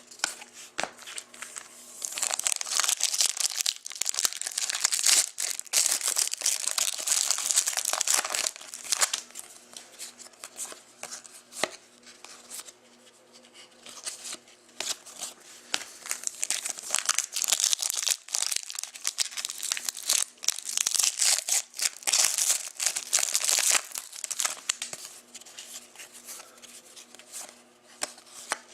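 Trading-card pack wrappers being torn open and crinkled by hand, in long spells of crackling with quieter pauses between them.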